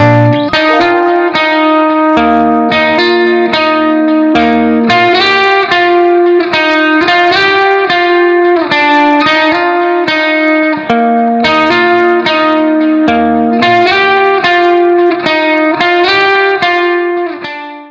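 Background music: a plucked guitar melody in quick, even notes.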